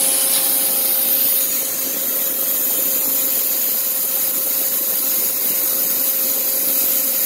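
Steady machine hum and hiss from a running CNC lathe, with a steady mid-pitched tone over it.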